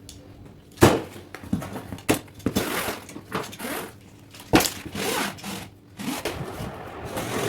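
Cardboard boxes and packaging being handled: several sharp knocks and bumps with rustling and scraping between them as the big carton of fireworks is opened and its boxed sky shots are taken out.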